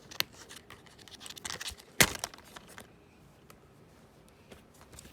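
Plastic DVD case being handled and opened: scattered light clicks and rattles, with one sharp snap about two seconds in.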